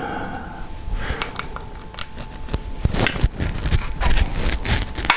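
Handling noise in a garage: irregular clicks, light knocks and scraping from objects being moved around, with a sharper knock near the end.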